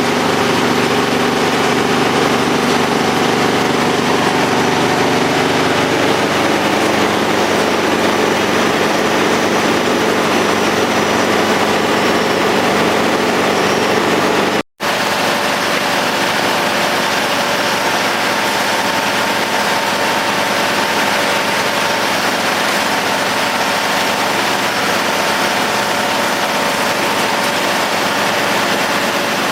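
Large tractor engine driving a Demuth drum wood chipper through its PTO shaft, running steadily with a hum of several steady tones. The lower tones shift about six seconds in. The sound drops out for an instant about halfway, and the hum comes back at a different pitch.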